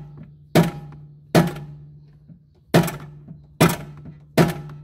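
Five hammer blows on a steel steering knuckle, spaced irregularly about a second apart, each strike ringing briefly. The knuckle is being shocked loose from the tie rod end.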